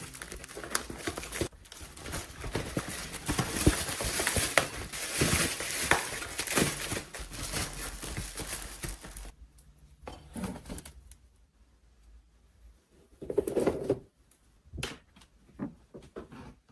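Plastic packaging crinkling and containers clicking and knocking as food items are handled and put away. The crackling is busy for the first half, then thins to a few separate knocks and rustles, with one louder rustle about two-thirds of the way through.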